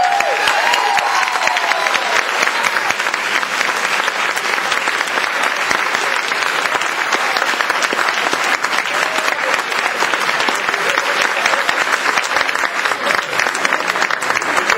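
A large audience applauding steadily, with a few voices cheering near the start.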